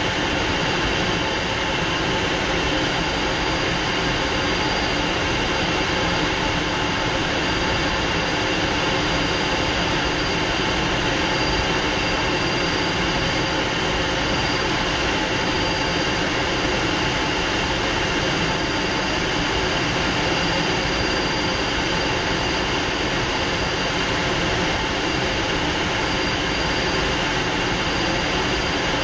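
Fouga Magister's twin Turbomeca Marboré turbojets running steadily in flight, heard inside the cockpit: an even rush of jet noise with a thin, high, steady whine over it.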